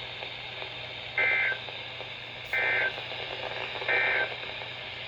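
Emergency Alert System end-of-message code: three short two-tone digital data bursts (the SAME "NNNN" end-of-message header), a little over a second apart, over a steady radio hiss and hum. They signal that the severe thunderstorm warning broadcast is over.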